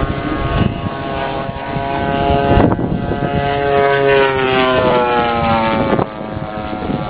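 Engine of a radio-controlled model airplane flying over, a steady propeller drone whose pitch falls from about four to six seconds in as it passes.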